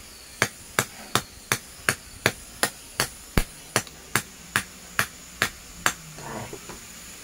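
Hardened knife blade, made from ship engine valve steel, chopping repeatedly into a cow bone on a wooden block: about fifteen sharp chops, close to three a second, stopping about a second before the end. It is a hardness test of the freshly hardened edge, which comes through without bending or chipping.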